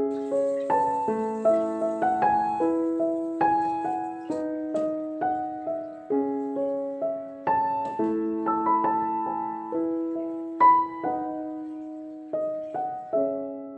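Background music: a gentle solo piano melody, notes struck about every half second and fading away.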